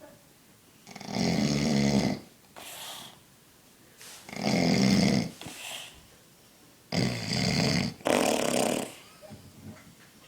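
A man snoring loudly in a slow rhythm: three long rattling snores about three seconds apart, the last one broken in two, each followed by a softer breath out.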